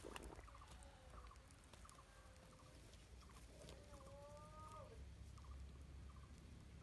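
Near silence: faint outdoor ambience with distant bird calls. There are short repeated chirps every second or so, and a longer call with bending pitch about four seconds in, over a low rumble.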